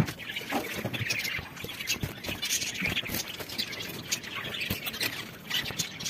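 A cage full of finches chirping and chattering together in quick, overlapping high calls, with a few soft knocks.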